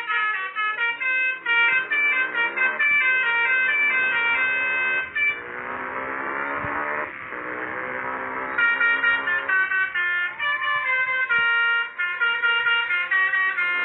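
Telolet basuri musical horn on a motorcycle playing a fast tune of short, trumpet-like notes. About five seconds in, the notes give way to a softer, hissier sound for around three seconds, then the quick notes resume.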